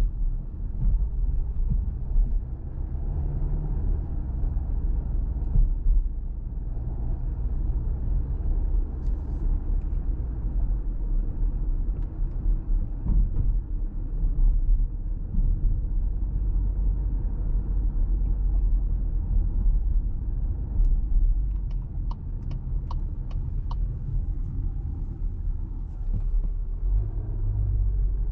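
Cabin noise of a 2024 Volkswagen Tiguan 1.5 eTSI mild hybrid (150 hp) in slow town driving: a steady low rumble of engine and tyres. About three-quarters of the way through there is a short run of light ticks, about two or three a second.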